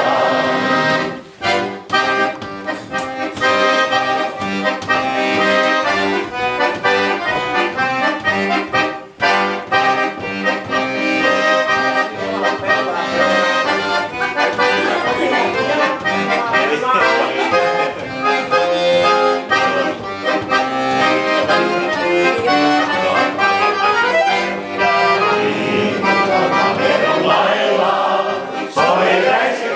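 Community sing-along: a roomful of voices singing a song together in unison to a steady instrumental accompaniment, with brief pauses about a second and nine seconds in.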